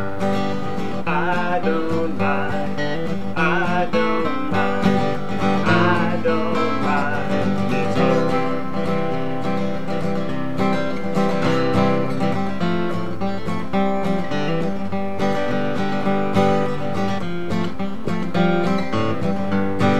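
Music: a song with strummed acoustic guitar throughout. A higher, wavering melody line sits on top of the strumming for the first several seconds.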